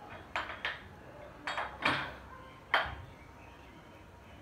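Chrome-plated adjustable dumbbells clinking and knocking, metal plate against metal plate, a handful of times in the first three seconds as the pair is brought together over the chest.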